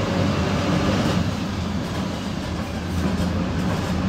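A PAZ 4234 bus's engine and road noise heard from inside the cabin while the bus drives, a steady low drone.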